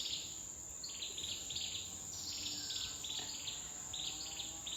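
Forest insects chirping: short pulsed high-pitched chirps repeating about twice a second, over a steady high-pitched insect whine.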